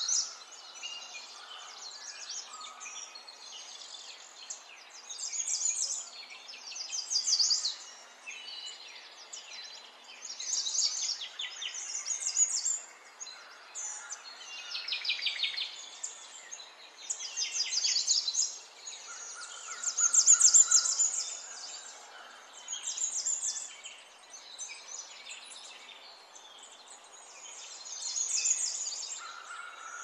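Birds chirping and singing in quick trills, several calls overlapping, in bursts every second or two.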